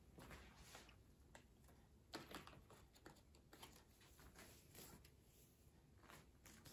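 Faint handling noise: light rustling and soft taps of cardboard thread cards and embroidery floss being handled, a little louder about two seconds in.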